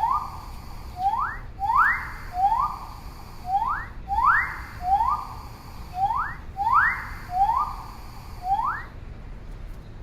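A whistled call repeated steadily, each a quick rising note followed by a longer held note, about once every second and a quarter.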